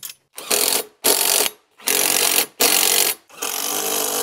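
Cordless impact driver run in several short bursts, driving nuts onto the bolts of a quad bike's front bumper.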